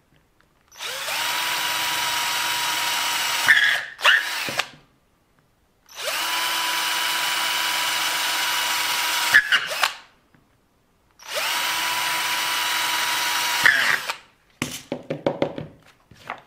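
Small electric drill running in three bursts of about three seconds each, boring grip holes into a broken plastic RC car part. Each run ends with a couple of sharp clicks. Light handling clicks follow near the end.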